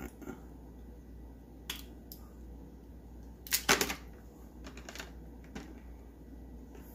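Light clicks and taps of small hard toy-car parts being handled on a work surface, loudest in a short rattling cluster about three and a half seconds in.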